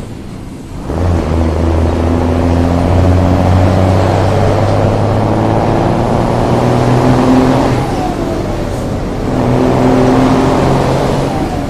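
City bus diesel engine rumbling loudly under power, pulling hard. The deep drone builds about a second in, sags briefly about eight seconds in, then picks up again before dipping near the end.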